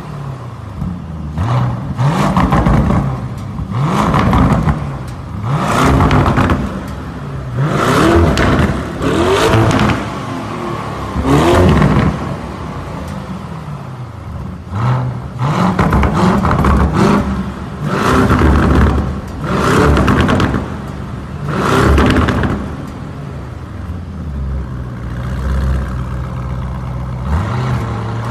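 Lamborghini Urus twin-turbo V8 exhaust being revved in place, a quick blip every second or two, each rising and falling in pitch, with quieter idle between.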